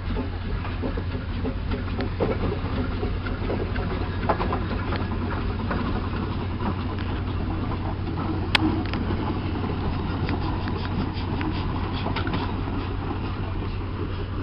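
Steam traction engine running close by as it moves off: a steady low rumble with a scatter of small clanks and knocks, and one sharp knock about eight and a half seconds in.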